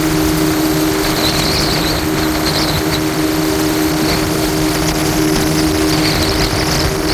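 Jet ski engine running at a steady cruising speed, a constant hum over a haze of water and wind noise, with a higher whine that fades in and out a few times.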